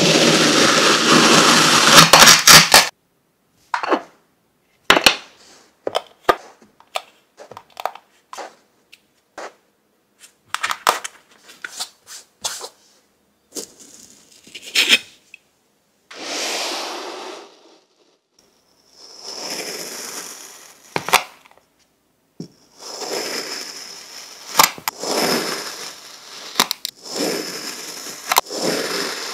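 Kitchen knife slicing through packed kinetic sand: gritty, crunching scrapes with each cut, among scattered sharp clicks.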